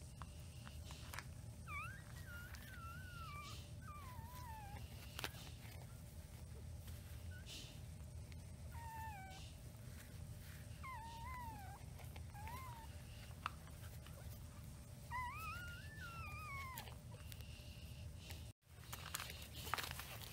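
Newborn puppies whining and squeaking as they crowd the mother dog's teats to nurse, in about four short bouts of thin, wavering high-pitched cries over a steady low hum.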